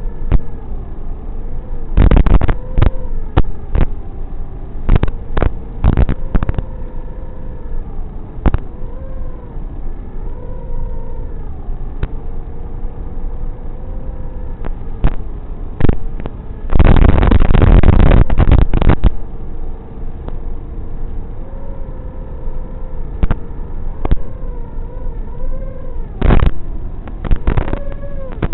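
FPV drone's motors and propellers whining steadily, the pitch rising and falling a little with the throttle. Several short, loud bursts of rushing noise break in, the longest lasting about two seconds a little past halfway.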